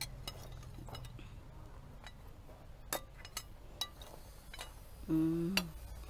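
A few scattered light clinks of tableware being handled, over a faint steady low hum.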